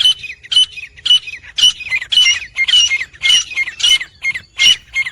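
Several grey francolins calling together in a dense chorus of short, harsh, ringing notes, about three to four a second, overlapping.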